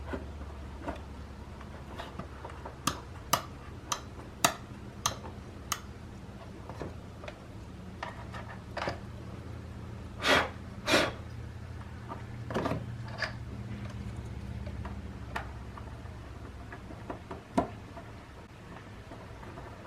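Small clicks and taps from handling the plastic switch housing and parts of an opened shop vac, a quick series in the first few seconds, with two louder short scraping bursts about ten seconds in. A steady low hum runs underneath.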